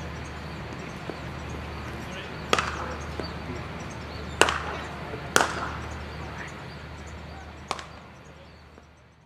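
Cricket bat striking the ball in the practice nets: four sharp wooden cracks, a second or two apart, over a steady low hum. The sound fades away near the end.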